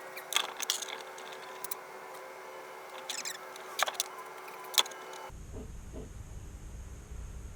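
Rubber and plastic fuel pump parts squeaking and clicking as they are pushed and worked together by hand, a string of short squeaks and sharp clicks for about five seconds.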